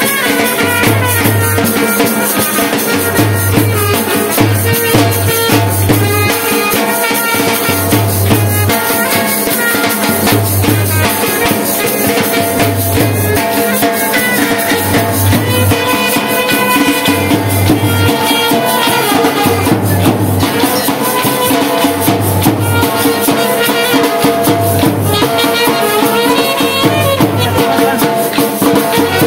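Folk music accompanying the Gopa Nritya ribbon-pole dance. Deep drum strokes land about once a second over a constant rattling, jingling percussion and a sustained melody.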